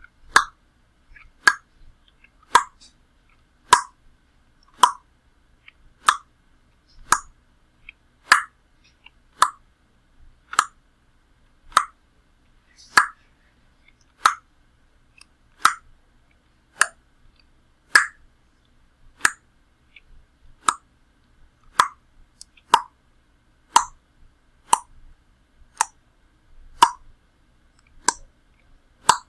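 Tongue clicks made with the mouth: single hollow clicks, about one a second, evenly repeated.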